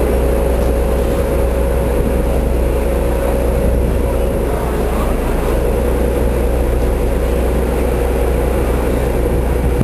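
Steady running rumble of a moving train heard from inside a 1920s passenger coach: a constant low drone with a steady mid-pitched hum over it.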